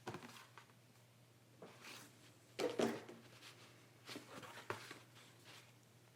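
Cardboard and paper board-game components being handled: a scatter of short rustles and light taps, loudest about two and a half seconds in, over a faint steady hum.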